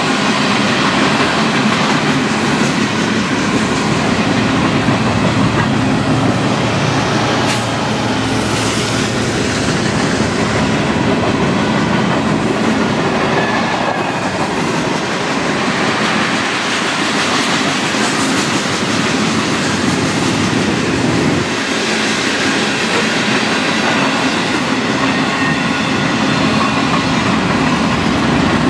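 Freight cars rolling past: a steady, loud noise of steel wheels running on the rails. A few seconds in, a mid-train EMD SD70ACe diesel-electric locomotive, working as distributed power, passes and adds its engine to the wheel noise.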